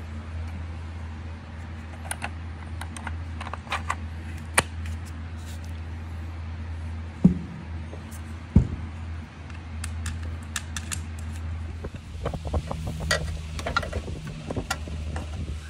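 Scattered clicks and taps of plastic and metal parts being handled and fitted together, as the ABS hydraulic control unit's electronic module is pressed onto its hydraulic block, with two louder knocks a little past the middle. A steady low hum runs underneath.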